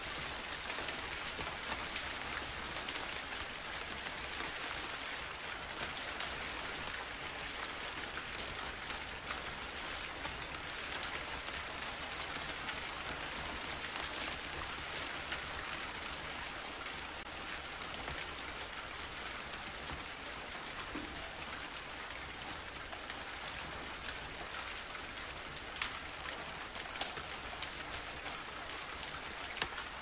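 Steady rain falling: an even hiss with many separate drops ticking through it.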